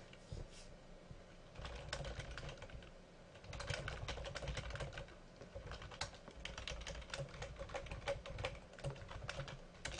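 Typing on a computer keyboard: bursts of quick keystrokes starting about a second and a half in, with a short pause around three seconds in.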